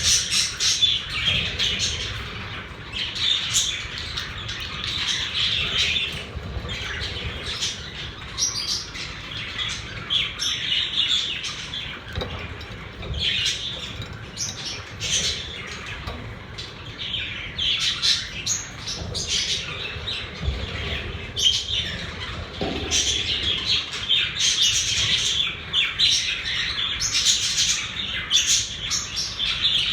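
Several pet budgerigars chattering and chirping without a break, a dense overlapping warble of short high chirps and squawks.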